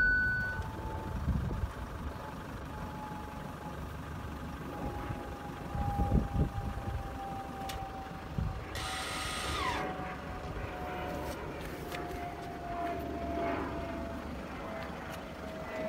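A car's parking-sensor warning holds a continuous tone, meaning an obstacle very close behind, and cuts off just after the start. Then a low vehicle rumble runs under a faint thin hum that drifts slowly down in pitch, with a brief rushing hiss about nine seconds in.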